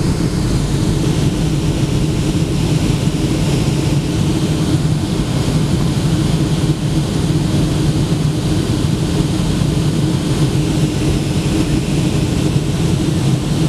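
Steady cabin noise of a Boeing 757 on descent, heard inside the cabin beside the wing engine: a constant low drone from the jet engine with the hiss of rushing air.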